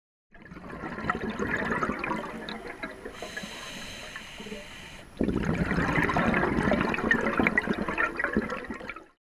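Bubbling, gurgling water. It eases off in the middle, surges back suddenly about five seconds in, and stops just before the end.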